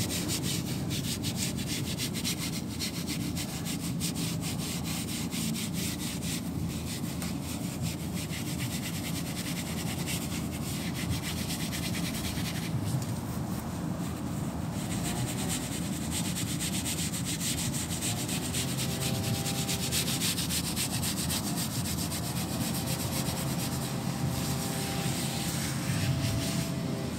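SOS steel-wool soap pad scrubbing the white sidewall of a rubber tire by hand: a steady, rapid scratchy rubbing.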